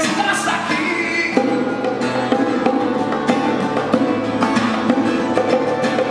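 Two acoustic guitars playing with hand-played bongos keeping a steady beat.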